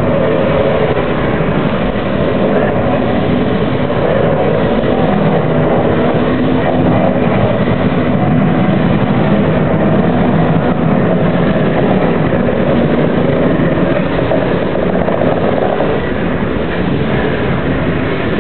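Steam locomotive working as it shoves a passenger car, a loud continuous rush and rumble with no clear exhaust beat.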